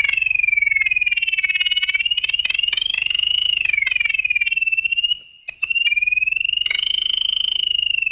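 Electronic sci-fi sound effect from the original Star Trek series: a rapidly pulsing, trilling tone that slowly wavers up and down in pitch. It breaks off briefly about five seconds in, then carries on.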